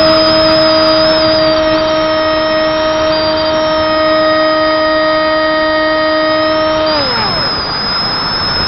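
Brushless electric motor and two-blade propeller of a Zeta Wing Wing Z-84 flying wing, a steady high whine with air rushing past the onboard camera's microphone. About seven seconds in, the throttle is cut and the whine glides steeply down in pitch and fades, leaving the rush of air.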